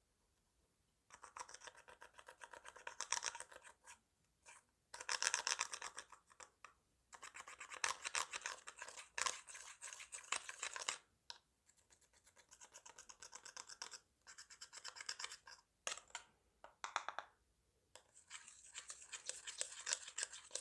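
Slime being squished, stretched and pressed by hand, making rapid sticky clicking and crackling in bursts of a few seconds with short pauses between. It begins about a second in.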